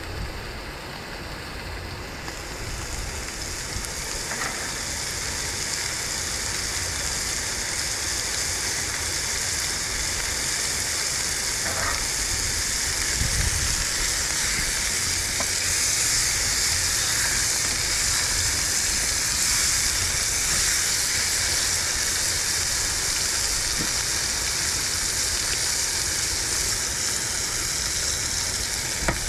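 Food sizzling as it fries in a hot pan, the sizzle swelling over the first several seconds and then holding steady, with a few faint clicks.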